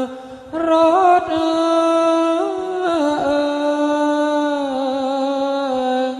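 A voice chanting Thai royal barge verses (kap he ruea) in long, slow, held notes that waver and slide between pitches, with a brief break for breath just after the start.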